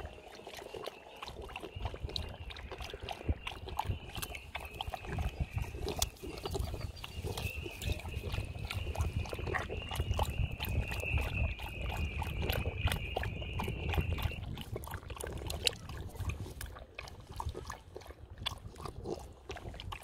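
English bulldog lapping water at the water's edge: a run of quick, irregular wet laps and small splashes. A steady high thin tone runs under it and stops about two-thirds of the way through.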